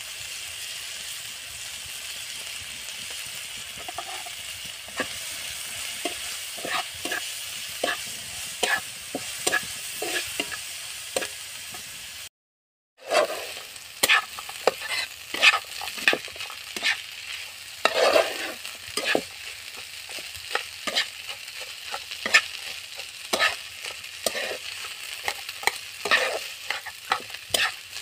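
Sliced onions and green chillies sizzling in hot oil in a nonstick pan while a spatula stirs them, with frequent short scrapes and taps against the pan. After a brief cut to silence about twelve seconds in, the spatula goes on stirring and scraping boiled black chickpeas and potato frying for chola bhuna, the strokes louder and more frequent.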